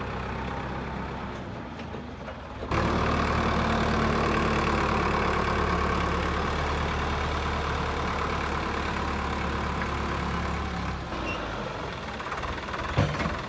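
Heavy vehicle's engine running steadily. It jumps suddenly louder about three seconds in and eases off again near the end, with a brief click shortly before it stops.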